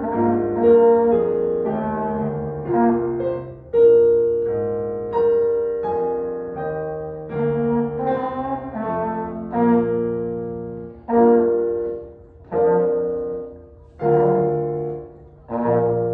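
Trombone playing a solo melody in held notes, with digital piano accompaniment. Toward the end the piano plays a run of chords, each struck and left to fade, about every one and a half seconds, as the piece closes.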